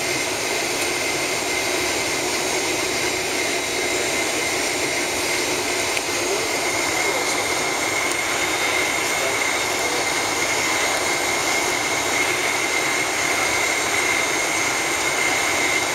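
Steady jet engine and air noise inside the cabin of a Boeing 767-400 as it taxis, with a high steady whine that grows louder about seven seconds in.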